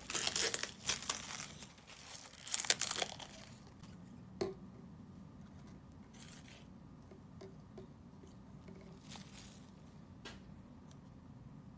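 Plastic packaging crinkling and tearing in loud bursts as a bottle is unwrapped. About four seconds in comes a single sharp knock as a bottle is set down on the tabletop, followed by a few faint taps.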